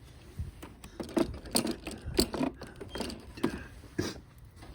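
A run of light clicks and knocks at irregular spacing, about eight in under five seconds, over a faint steady background.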